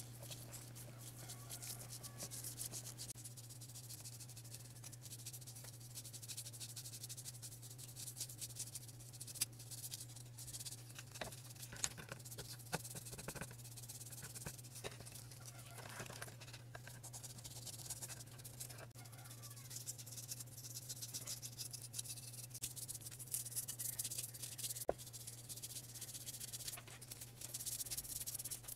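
A small brush scrubbing a painted model-car part in a bowl of frothy liquid: a faint, steady, scratchy rubbing with small clicks and the crackle of the suds, over a low steady hum.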